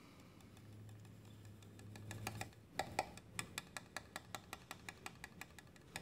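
Solis Scala Zero grinder's plastic catch bin tapped lightly and quickly, about four small taps a second, knocking coffee grounds out onto a plate.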